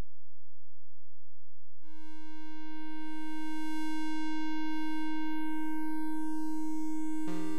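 VCV Rack software modular synthesizer: a faint low drone, then about two seconds in a sawtooth oscillator tone comes in, bright and buzzy with many overtones, held steady at one pitch. Near the end a sequenced pattern of short synth notes starts.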